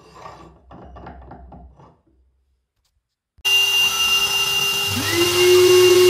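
CNC router running with a loud steady whine and hiss that starts suddenly, with a second tone rising and levelling off about five seconds in as the spindle comes up to speed. Before it, a softer irregular scraping for the first two seconds.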